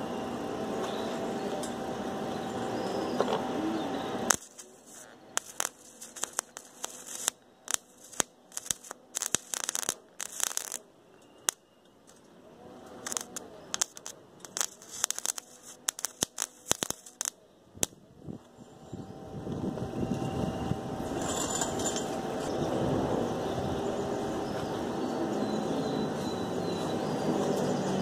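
Electric arc welding on stainless steel tubing: the arc crackles and pops in irregular spurts from about four seconds in until about eighteen seconds. Before and after that stretch there is a steady hum.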